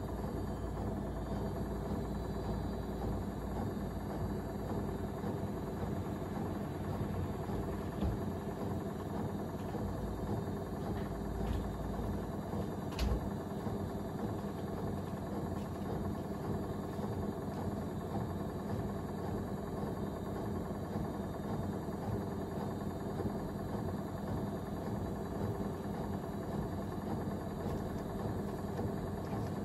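Gorenje UseLogic front-loading washing machine running a spin-only cycle: steady motor hum and drum rumble, with a few short knocks, the loudest about 13 seconds in.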